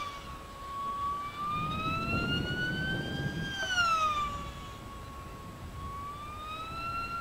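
Radio-controlled model airplane's electric motor and propeller whining in flight, the pitch rising slowly, dropping sharply about three and a half seconds in, then rising again near the end.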